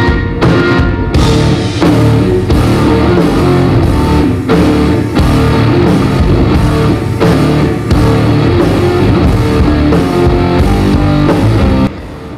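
Live rock played by a two-piece band, electric guitar and drum kit only, loud. It cuts off suddenly near the end.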